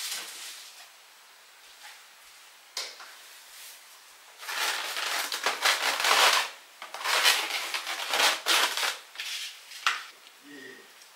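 Styrofoam takeout clamshell boxes being handled and stacked on a stovetop, with rubbing and scraping foam in irregular strokes for several seconds, after a single click.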